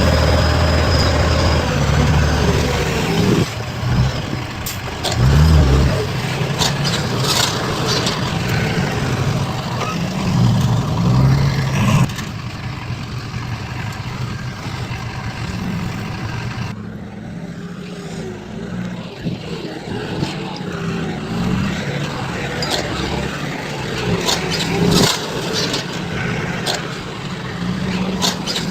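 Diesel engines of heavy construction machinery running and revving, with scattered clanks and scrapes. The sound changes abruptly several times.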